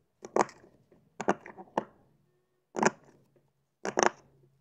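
Silicone pop-it fidget toy, its bubbles pushed through with fingertips: sharp little pops coming a few at a time, in about five bunches with short pauses between.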